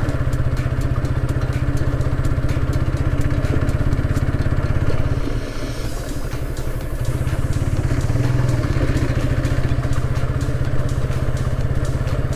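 TVS Apache motorcycle's single-cylinder engine running at steady low revs. It eases off briefly a little before halfway and then picks up again.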